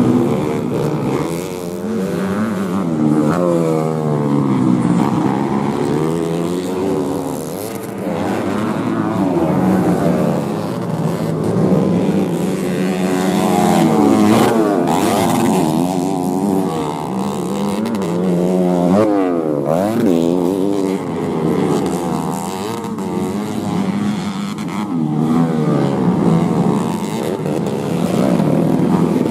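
Several modified underbone motorcycles racing on a dirt grasstrack, their engines revving up and down and overlapping as the bikes accelerate, shift and pass.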